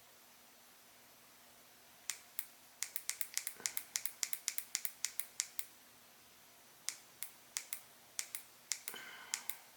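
Sequre SQ-A110 soldering iron's temperature buttons being clicked rapidly, in two quick runs, to step the set temperature down from 500 toward 400 degrees.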